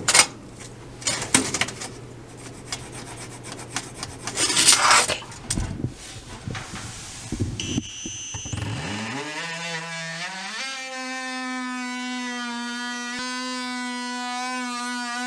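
Handling knocks and rustles, then a Craftsman cordless oscillating multi-tool starts about eight seconds in: its buzz rises in pitch over a couple of seconds and then runs steady as it cuts a notch in the back of the fireplace for the gas pipe.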